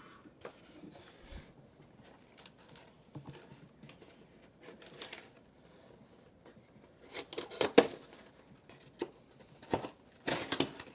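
Small keychain multi-tool blade slicing through packing tape on a cardboard box, with scraping and tearing strokes of tape and cardboard. The loudest strokes come in two clusters in the second half.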